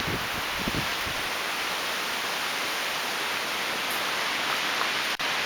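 Gale-force wind blowing through tall Douglas fir and other forest trees, a steady rushing hiss, with a few low gusts buffeting the microphone in the first second. The sound cuts out for an instant near the end.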